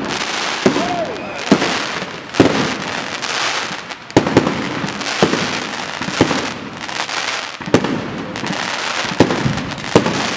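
Fireworks display: aerial shells bursting overhead with sharp bangs about once a second, and a continuous crackle of glittering stars filling the gaps between the bangs.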